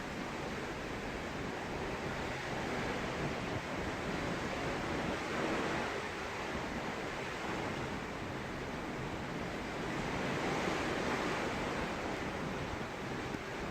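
Sea rushing past a cruise ship's hull, with wind, a steady wash of noise that swells twice and eases.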